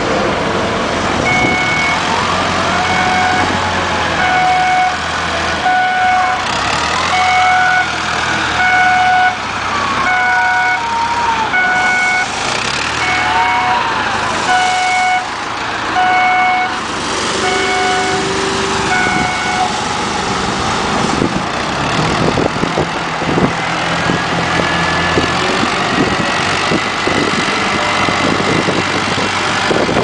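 Diesel engine of an XCMG WZ30-25 backhoe loader running as the machine is driven and worked, its pitch rising and falling. A reversing alarm beeps about once a second for roughly the first twenty seconds, then stops while the engine runs on.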